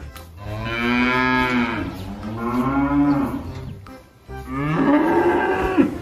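Holstein dairy cows mooing: three long moos in a row, each rising and then falling in pitch.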